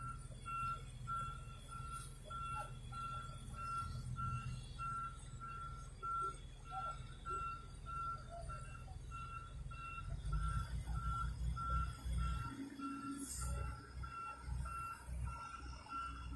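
Excavator warning alarm beeping steadily about twice a second over the low rumble of a diesel engine running. The engine grows louder about ten seconds in.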